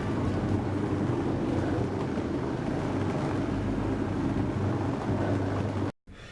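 Carpet cleaning machine running steadily, a continuous motor drone with a low hum. It cuts off abruptly near the end.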